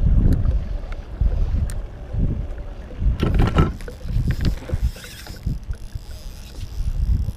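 Wind buffeting the microphone in uneven low gusts, with a short rustling burst about three seconds in.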